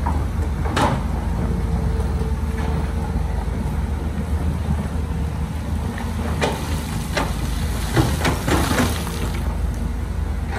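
Diesel engine of heavy construction machinery running steadily at a low drone. Scattered sharp clanks sound over it, with a denser rattling clatter about eight to nine seconds in.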